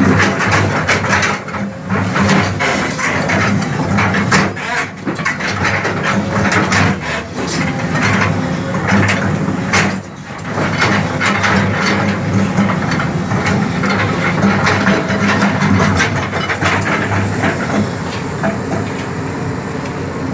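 Bulldozer at work: its diesel engine running steadily under many irregular metallic clanks and knocks, easing a little near the end.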